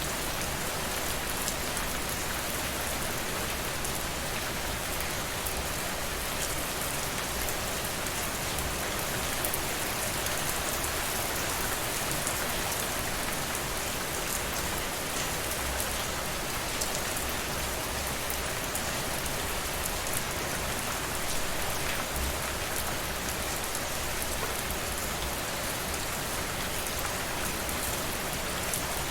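Steady rainfall, drops pattering densely on a surface, with no thunder.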